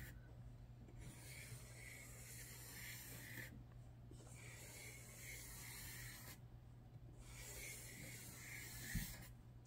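Black Sharpie marker drawn across vellum paper in three long strokes, a faint scratchy hiss with short breaks where the pen lifts, over a steady low hum. A soft thump about nine seconds in.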